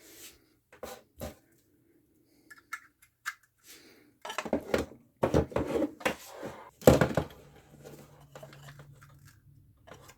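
Handling of packaging and hardware: scattered clicks and rustles, with a dense stretch of rustling, tearing and knocking between about four and seven and a half seconds in. This is followed by a faint steady low hum.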